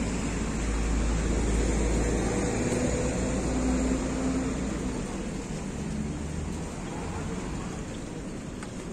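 Street traffic noise: a vehicle engine's low rumble with a steady hum over it, easing off about five seconds in and leaving a quieter steady background.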